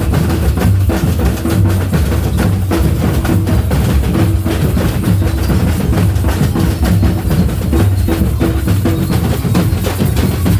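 Batucada samba drum group playing: deep bass drums under a fast, steady beat of snare and other percussion strikes.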